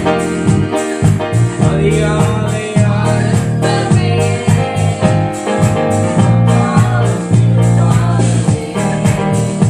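Christian worship music playing: instruments with a steady beat and a singing voice.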